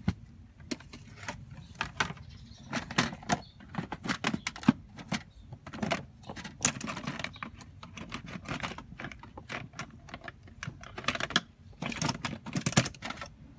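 Small metal tools and parts being handled: irregular clinks, clicks and rattles, like rummaging through a set of tools.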